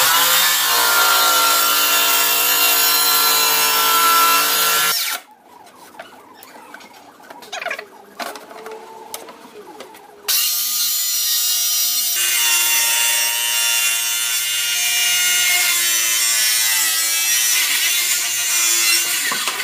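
Circular saw cutting a sheet of wood, its motor whining steadily under load for about five seconds. It stops for about five seconds, with only faint handling sounds, then cuts again for about nine seconds.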